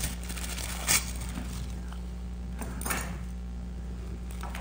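A sheet of wax paper torn from its roll and crinkled in the hands, with a few sharp knocks and clatters on the workbench, the loudest about a second in. A steady low hum runs underneath.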